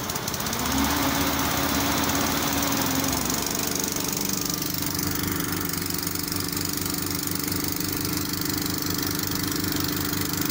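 Diesel engine of an F15 pick-and-carry crane running steadily under load while the crane lowers a precast concrete chamber. Its hum rises in pitch about half a second in, dips slightly around three seconds, then holds steady.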